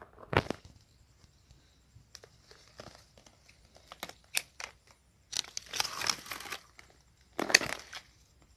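Spiny palm fronds and dry leaf litter being handled and shifted by hand, giving irregular crackles, snaps and rustling. Two longer rustling, tearing bursts come about five and a half and seven and a half seconds in.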